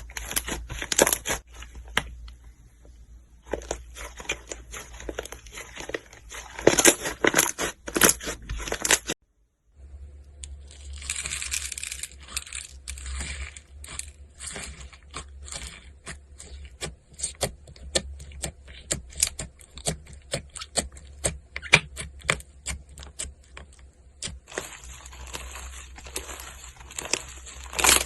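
Slime being squished and pressed, a dense run of sticky clicks, pops and crackles that breaks off for half a second about nine seconds in.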